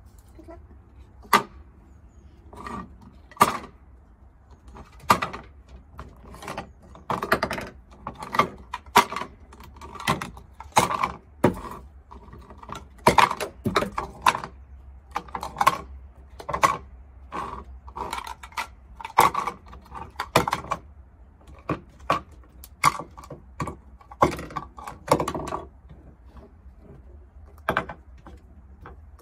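Small plastic tubs being nudged, flipped and tossed across a wooden hutch floor by pet lop rabbits: a long run of sharp, irregular knocks and clatters with short pauses between them.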